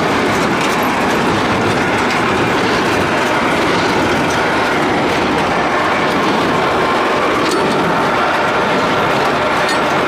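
New Holland 273 twine-tie square baler running off a tractor's 540 PTO: a loud, steady mechanical clatter of the working baler.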